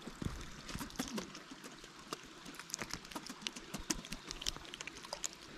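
Faint, irregular light ticks and small splashes of a small hooked trout thrashing at the water's surface as it is lifted out.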